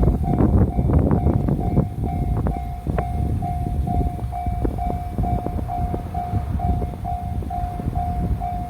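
Japanese level-crossing warning bell ringing its repeated electronic tone, about two strokes a second, while a JR Sagami Line train rumbles and clatters over the crossing. The train noise is heaviest in the first two seconds, then eases off.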